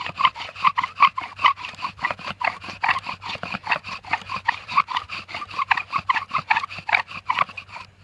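Bow drill in use: a dry pine spindle squeaking against the hearth board with each stroke of the bow, about four rhythmic squeaks a second, as friction works toward an ember. The strokes stop abruptly near the end.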